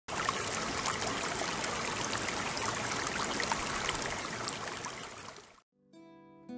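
Steady rushing of running water, like a brook, with small splashy ticks in it, fading out near the end. Just after, a few soft plucked guitar notes begin.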